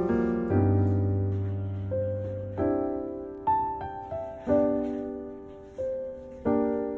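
Background music: a slow, gentle piano piece, chords and single notes struck one after another and left to ring and fade.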